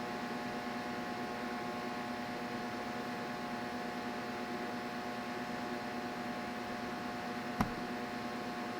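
Steady mechanical hum with a few fixed tones over a light hiss, and one sharp click near the end.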